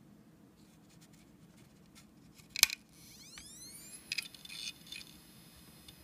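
Opened IBM hard drive powering up: a sharp click from the head actuator, then the spindle motor spinning up with a rising whine that settles into a steady high tone, while the head arm clicks several times.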